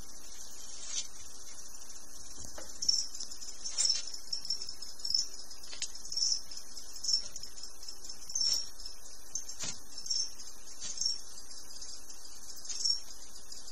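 Quince monitor lizard chewing and swallowing a pinky mouse: irregular soft clicks and wet crunches, roughly one a second, over a steady hiss.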